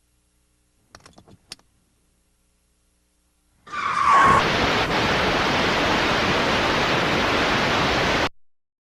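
A few faint clicks about a second in, then a loud hiss of static that starts with a short tone, holds steady for about four and a half seconds, and cuts off suddenly.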